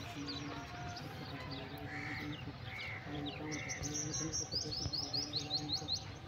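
Small birds chirping: scattered short high chirps, three brief lower calls around the middle, and a quick run of high chirps near the end, over a faint low hum.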